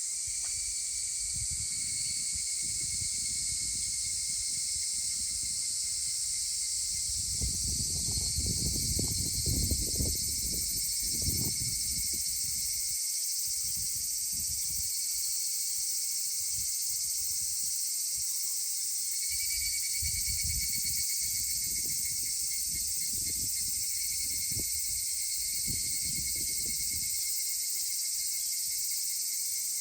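A chorus of higurashi cicadas (Tanna japonensis) calling steadily, high-pitched, with a fainter pulsing call beneath it. Low rumbling comes and goes about a quarter of the way in and again just past the middle.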